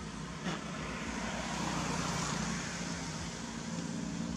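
A motor vehicle going past: its noise swells to a peak about two seconds in and eases off, over a steady low engine hum.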